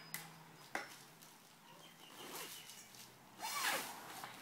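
Faint rubbing and swishing of a metal cot bar being threaded through the canvas sleeve of a stacking bed. There is a light knock about a second in and a louder rub near the end.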